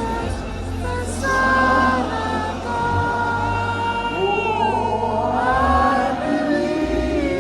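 Gospel worship music: voices singing long held notes that slide between pitches, over a steady bass.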